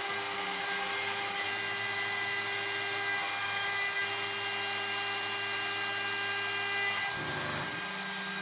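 CNC router spindle whining steadily as it carves acrylic sheet, with the humming of the axis motors underneath. The motor tones break off and change pitch about seven seconds in as the machine shifts to a different move.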